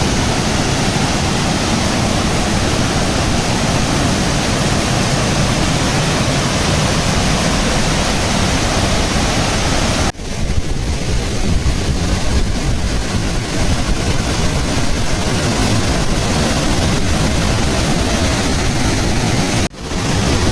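Waterfall's water pouring, a loud steady rush with no pitch to it. The sound drops out for an instant about ten seconds in and again near the end.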